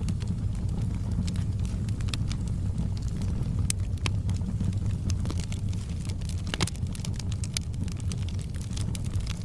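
Crackling fire: irregular sharp pops and snaps over a steady low rumble of the flames.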